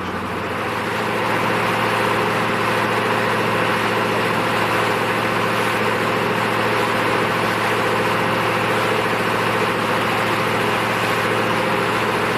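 A large boat's engine running steadily under way, a low droning hum, with the rush of water and wake over it.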